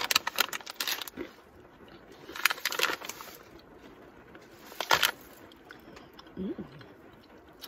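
Plastic snack pouch of macadamia nuts being opened and handled, crinkling in a few short bursts.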